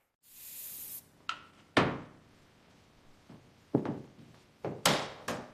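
A short hissing burst, then a handful of separate knocks and thunks, the loudest about two seconds in.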